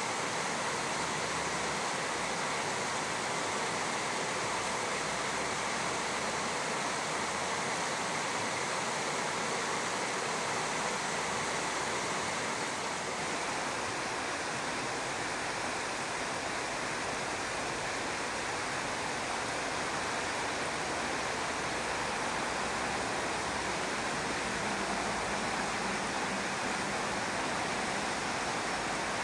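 Shallow river water running over a gravel riffle: a steady, even rushing.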